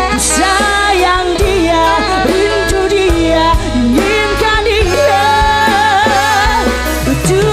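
Live dangdut band playing a passage between sung lines, with an electric guitar carrying a wavering, sliding melody over bass and drums.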